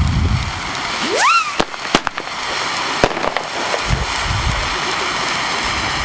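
Fireworks going off: a quick rising whistle about a second in, then several sharp bangs, then a steady crackling hiss.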